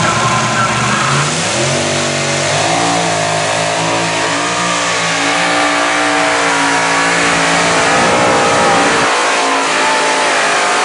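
Multi-engine modified pulling tractor's supercharged engines at full throttle, dragging a weight-transfer sled. The engine note rises about a second and a half in, then holds high and steady.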